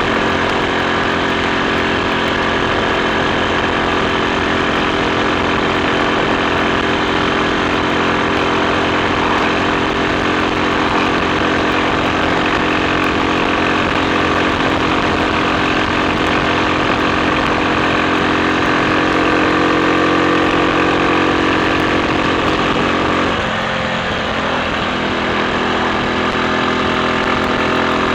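Triumph Sports Cub's single-cylinder four-stroke engine running at a steady speed. Late on, its pitch briefly shifts and the level dips, then it settles again.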